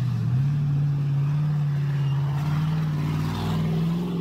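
Ultra4 race car's engine revving as it drives through a muddy water puddle and passes close by, its pitch climbing in steps.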